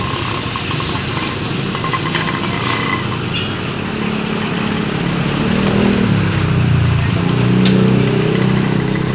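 Kawasaki Barako motorcycle engine running, picking up in pitch and loudness about six seconds in and holding at the higher speed.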